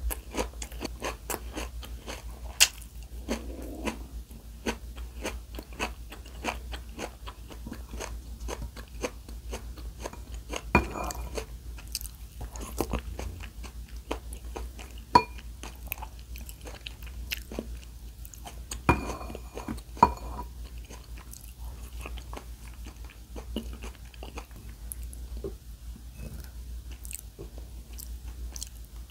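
A person chewing and biting crunchy food close to the microphone: a steady run of small crunches with a few sharper bites.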